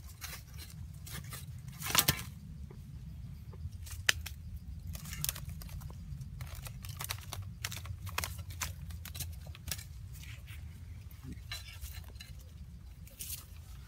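A stick scraping and prodding in dry earth at a hole, with knocks and rustles from a woven bamboo basket being handled: a run of short scrapes and clicks, the loudest about two seconds in and a sharp click about four seconds in.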